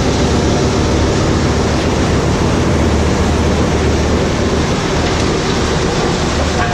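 Tractor-driven Mus-Max wood chipper running under load, chipping logs and blowing the chips out of its spout into a trailer: a loud, steady rushing noise over a low engine hum, with no breaks.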